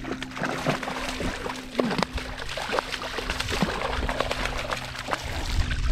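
A hooked fish thrashing at the surface beside a kayak, throwing up repeated splashes of water.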